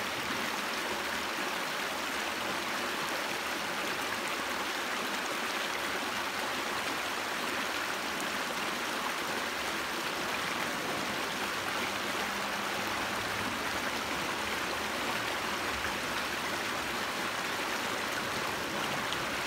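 A small creek running over rocks: a steady rush of water through a shallow riffle.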